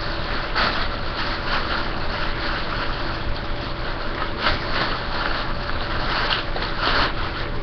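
Steady room hiss with a faint electrical hum, and a few soft rustles and handling noises as items are picked up and moved.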